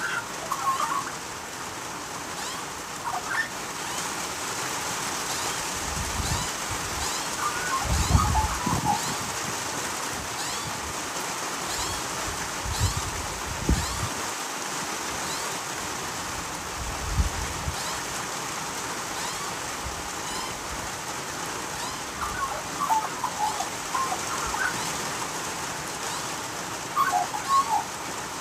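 Australian magpies giving short bursts of warbling calls now and then over the steady hiss of falling rain, with a few low thuds in the middle.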